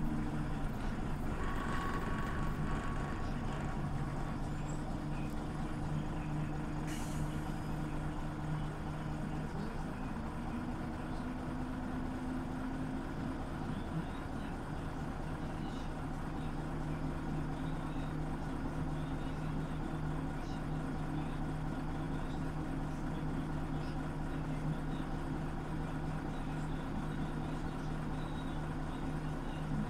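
Scania OmniLink CL94UB city bus running steadily, its engine giving an even low hum, with a brief high hiss about seven seconds in.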